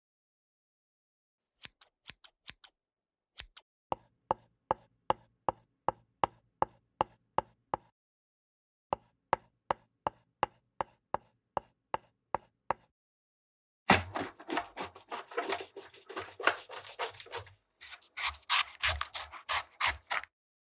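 Kitchen knife chopping on a cutting board: a few light taps, then two runs of steady chops about three a second, then two stretches of fast, continuous chopping.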